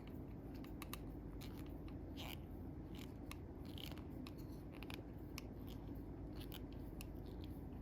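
Faint, irregular small metallic clicks and ticks of a screwdriver and the parts of a folding knife being handled and screwed together.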